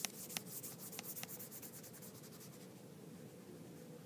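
Quick rubbing strokes on an iPad's touchscreen as work is erased, a few short scratches in the first second, fading out by about halfway to faint room tone.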